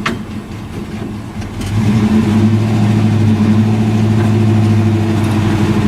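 1963 Chevrolet C30 one-ton truck's engine running, heard from inside the cab; a little under two seconds in it picks up and holds a louder, steady drone under throttle as the truck is driven slowly.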